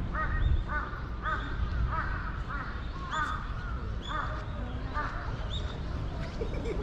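A crow cawing repeatedly: a series of about eight short caws, each rising and falling in pitch, over a low steady background rumble.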